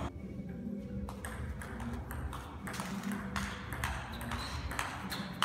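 Table tennis ball in play, starting with a serve about a second in and going into a rally: sharp clicks of the ball on the bats and the table, about two a second.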